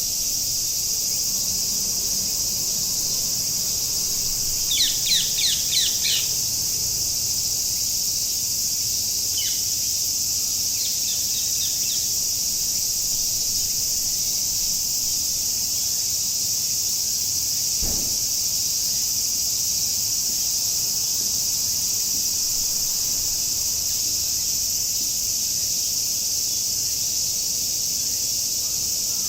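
Cicada chorus keeping up a steady, loud, high-pitched drone. About five seconds in a bird calls a quick run of about five downward-sliding notes, followed by a single such note a few seconds later and fainter ones after it.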